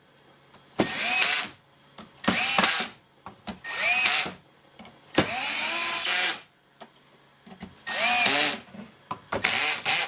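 A power screwdriver driving screws, six short runs one after another. Each run has a motor whine that rises and then falls as the screw seats.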